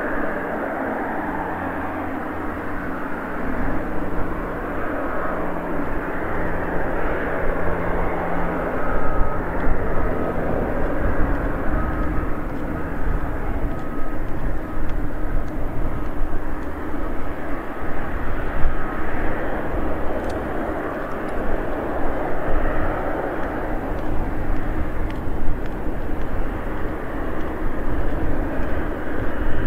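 Jet engines of a Boeing 777 airliner running at low power as it rolls slowly along the runway: a steady rumble and whine that grows louder a few seconds in.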